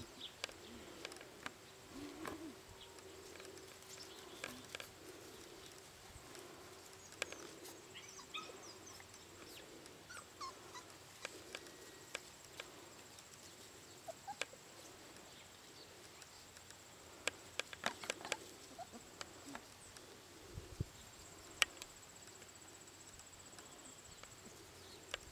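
Four-week-old Siberian Husky puppies giving faint, scattered whimpers and squeaks, with sharp clicks and knocks here and there.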